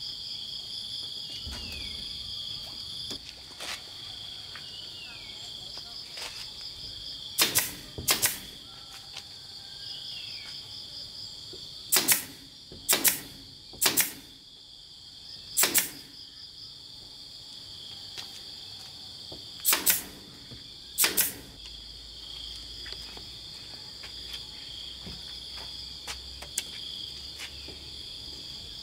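Pneumatic nail gun firing nails into wooden gate boards, eight sharp cracks: two close together, then four about a second apart, then two more. A steady high insect chirring goes on underneath.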